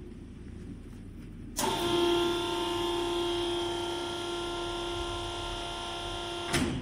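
Electric motor of a stainless steel vacuum emulsifying mixer running with a steady multi-tone whine. It starts abruptly about a second and a half in and cuts off near the end.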